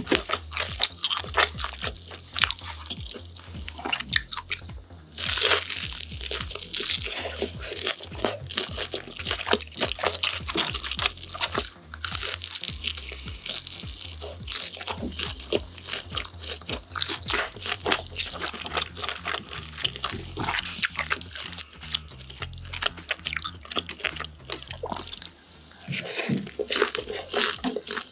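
Crispy glutinous-rice-battered fried pork (tangsuyuk) being bitten and chewed close to the microphone: a dense run of crunches throughout.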